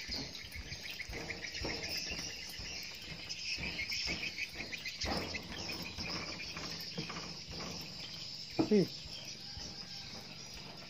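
Insects chirring steadily in a high, pulsing drone, with a few soft knocks. A brief falling cry stands out about nine seconds in.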